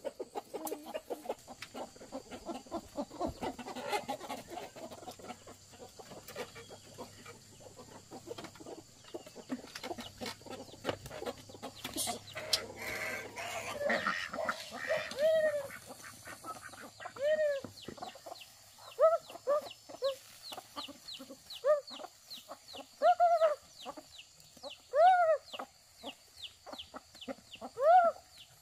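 Chickens clucking, dense at first, then single arched calls every second or two. A short burst of noise comes about halfway through.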